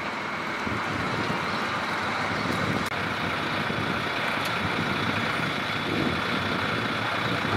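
Old bus engine running steadily at idle, a continuous low rumble with a broad hiss over it.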